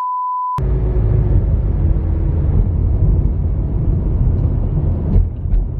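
A steady electronic beep at one pitch cuts off about half a second in. Then a car's low, steady road and engine rumble follows.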